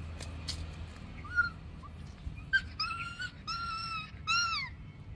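Puppy whining during rough play: a short high whine about a second in, then three longer high-pitched whines in quick succession in the second half, the last one dropping in pitch.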